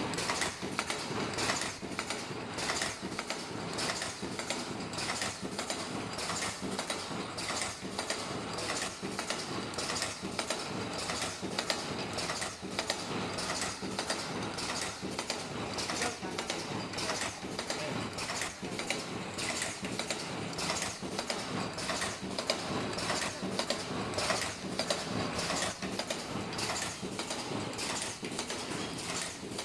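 Automatic ultrasonic face mask machine running, a steady mechanical clatter of many quick clicks and clacks, several a second, from its moving parts.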